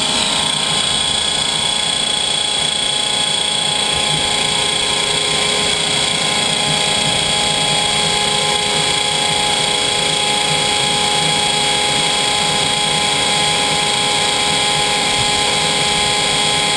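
Homemade gas turbine running steadily with the gas fully open on both tanks: a steady high whine of several fixed tones over a rushing hiss.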